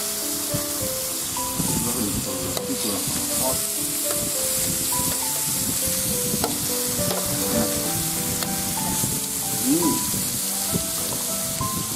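Beef slices and shrimp sizzling on a ridged electric indoor grill plate, a steady hiss, with a few light clicks as metal tongs lay the meat on the grill. Soft background music with a slow melody plays underneath.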